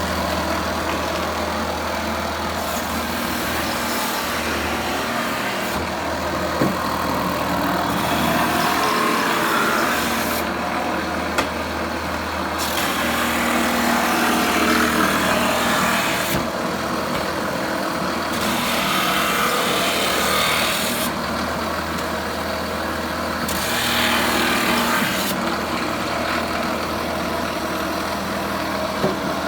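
Motor-driven steel wire wheel running with a steady low hum, with repeated stretches of a few seconds of harsh scraping as wooden bee boxes are pressed against it to brush off old paint and grime.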